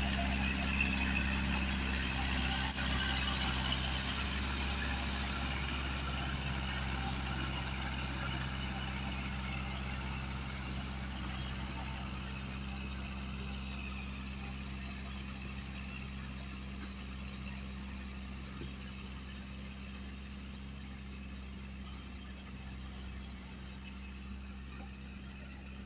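Kubota L5018 tractor's diesel engine running steadily while pulling a rotary tiller through mud, growing gradually fainter as the tractor moves away.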